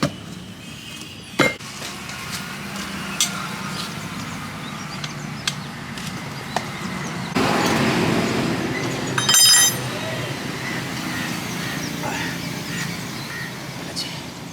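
Vehicle engine noise with scattered clicks and clinks. A louder rush of noise starts about seven seconds in and lasts a few seconds, with a brief high-pitched tone about nine seconds in.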